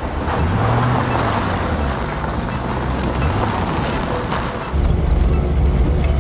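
Pickup truck driving: low engine and road rumble whose pitch rises and falls briefly about a second in. About four and a half seconds in, it steps up to a louder, steady low engine drone, as heard inside the cab.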